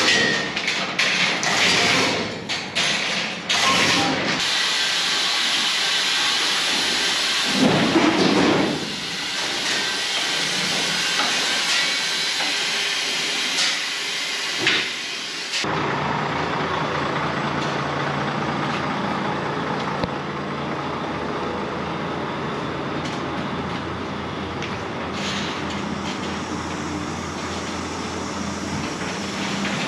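A loud steady hiss of high-pressure spray, cut off abruptly several times, for about the first half. Then a livestock truck's engine idling with a steady low hum.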